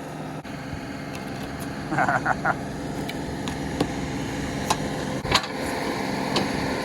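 John Deere 2038R compact tractor's diesel engine running steadily while it powers a 270B backhoe digging out a tree stump. There is a short cluster of squeaks about two seconds in, and there are sharp knocks later as the bucket works against the roots.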